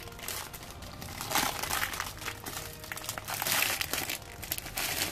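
Thin plastic packaging crinkling and rustling as a rolled playmat is worked out of its plastic wrap. The crackling comes in irregular bursts, loudest about a second and a half in and again around three and a half seconds.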